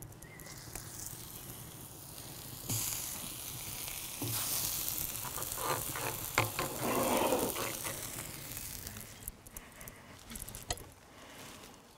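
Red cabbage halves sizzling in oil on a hot plancha over a wood fire. The sizzle starts about three seconds in, gets louder a second later and dies down near the end, with a few sharp knocks as the pieces are handled on the plate.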